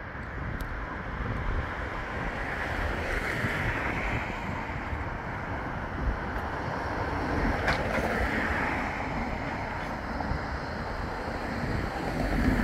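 Wind buffeting the microphone, with a Bombardier Flexity 2 tram approaching along the track and growing louder near the end as it draws up to the stop.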